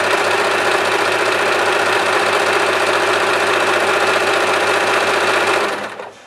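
Usha Janome Allure electric sewing machine running steadily, sewing a triple straight stitch (reinforced stitch) through fabric, then stopping abruptly near the end.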